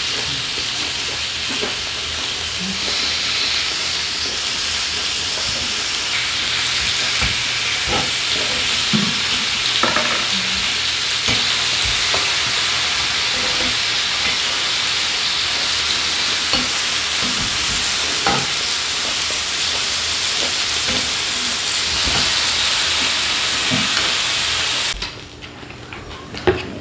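Food sizzling steadily on a grill pan over a portable gas burner, with occasional light clicks of utensils against the pan and dishes. The sizzle drops away suddenly near the end.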